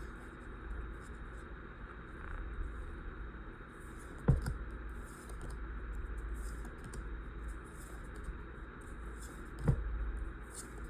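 Pokémon booster pack and trading cards being handled by hand: faint crinkling and rustling of the foil wrapper and cards, with two sharp taps, about four seconds in and near the end.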